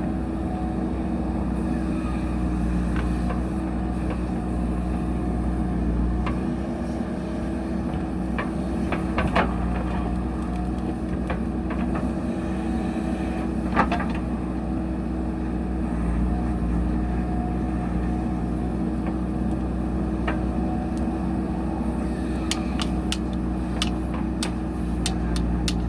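JCB backhoe loader's diesel engine running steadily, with occasional sharp metallic knocks and clanks, several of them coming close together near the end.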